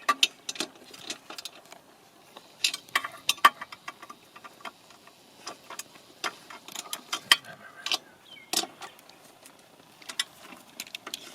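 Irregular metallic clicks and taps from hand tools and exhaust parts being worked on a motorcycle, coming in short clusters with gaps between.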